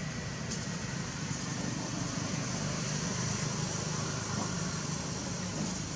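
Steady low rumble with a faint hum and an even hiss over it, with no distinct event standing out.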